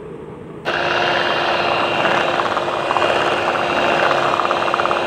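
Electric hand mixer running at speed, its twin beaters whirring through beaten egg whites and yolks in a bowl; the motor's whine starts abruptly about half a second in and then holds steady.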